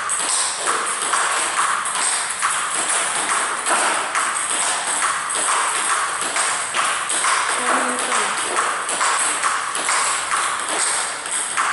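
Table tennis balls being struck by bats and bouncing on the table in quick succession, a steady run of sharp clicks, a few each second, during a fast drill.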